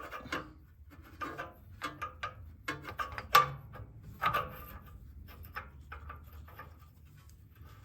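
Irregular scraping and clicking of a metal oxygen-sensor socket being worked over an exhaust O2 sensor in a cramped spot, with one sharp knock about three and a half seconds in.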